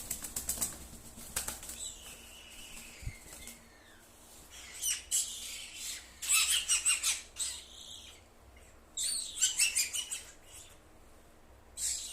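A small pet bird chirping and fluttering its wings in short rapid bursts, several times, with quieter pauses between.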